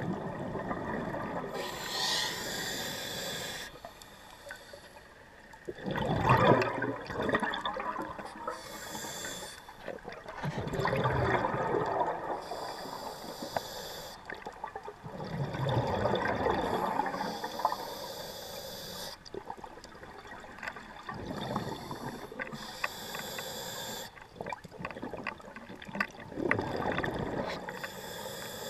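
Scuba regulator breathing, heard underwater: a short hiss on each inhalation alternating with a burst of bubbling on each exhalation, about five breaths.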